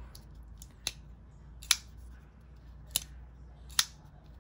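Hogue Ritter RSK MK1-G2 folding knife being swung open and dropped shut by working its crossbar lock: four sharp metallic clicks about a second apart as the blade locks and snaps closed. The freshly adjusted pivot lets the blade fall shut freely with no blade play.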